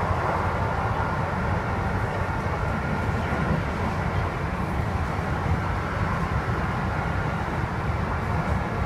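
Kintetsu 2610 series train set X25 running at speed, heard from inside the car: a steady low rumble with higher tones mixed in over it. This is the set's abnormal running noise, a sound of high and low tones mixed together.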